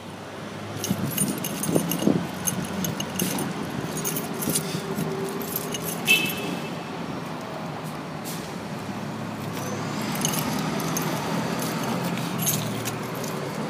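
Keys jangling and small objects clattering as they are handled, with many short clicks and one sharper clatter about six seconds in, over a steady low hum of vehicles.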